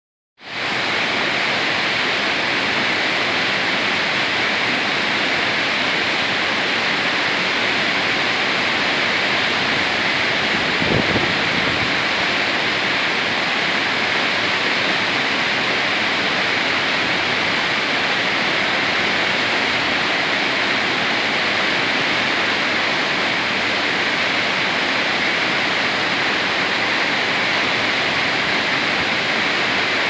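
Waterfall pouring over rocks into river rapids: a steady, even rush of white water, with one brief low thump about a third of the way in.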